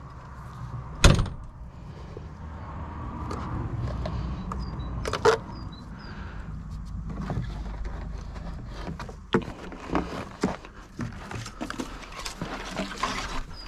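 Knocks and taps of hand work: one sharp knock about a second in, another around five seconds, then a run of lighter clicks and taps, over a steady low rumble.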